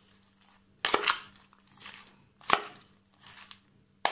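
Salad being tossed in a plastic bowl with a slotted metal spoon and a fork: leaves rustling and utensils scraping the bowl in short, sharp strokes about a second and a half apart.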